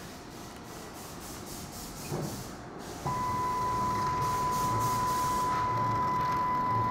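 A drilling machine's spindle motor switches on about three seconds in and runs with a steady high-pitched whine over a hiss. Before that there are only faint handling sounds.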